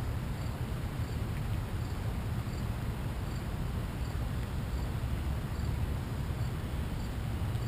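Steady outdoor background noise with a low rumble, and a cricket's faint high chirp repeating at even intervals, a little under once a second.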